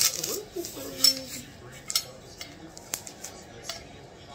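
Plastic-wrapped metal dance-pole sections being handled, giving sharp clicks and clinks about once a second, the loudest ones at the start and about a second in.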